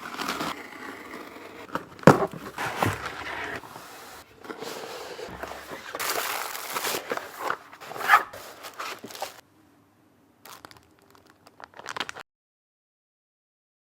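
Keyboard packaging being unboxed: cardboard and wrapping crinkling and scraping while being handled, with a few sharp knocks.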